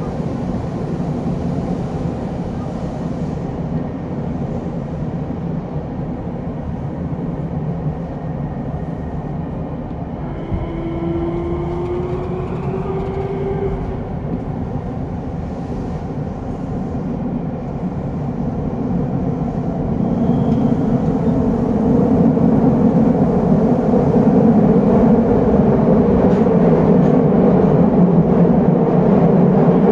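Eidan 7000 series subway train with Hitachi traction motors running through the tunnel, heard from inside the car: a steady rumble of wheels and running gear. About a third of the way in, a short rising motor tone sounds. The running noise gets louder about two-thirds of the way through.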